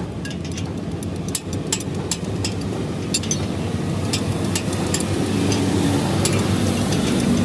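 A motor vehicle engine running steadily, growing louder toward the end, with scattered sharp clicks over it.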